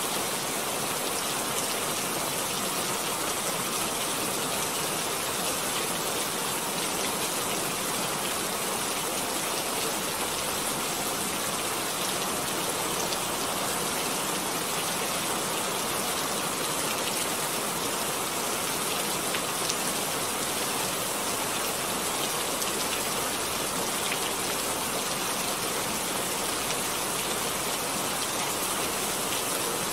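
Steady, even rain-like hiss with no breaks or changes.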